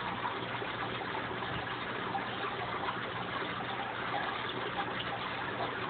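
Steady bubbling and trickling of aquarium water, from a stream of air bubbles rising through the tank, with a faint low hum beneath it.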